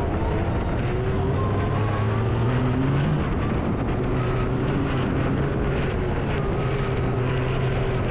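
Can-Am Maverick X3 side-by-side's engine running under way, its pitch climbing about two to three seconds in and then holding steady.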